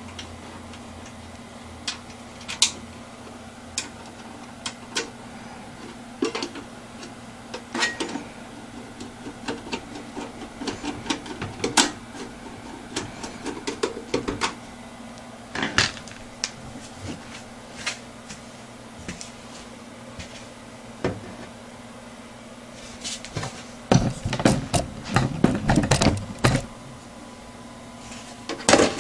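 Scattered light clicks and knocks of hard plastic and metal parts being handled, with a quick run of rattling clacks near the end, over a faint steady hum.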